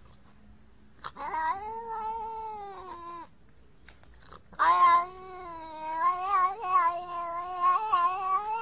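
Domestic cat yowling: a long drawn-out wail about a second in, then a second, longer wail from about halfway that wavers in pitch.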